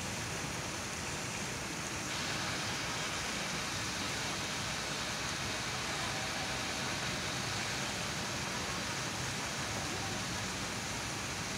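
Steady, even hissing noise with no distinct events.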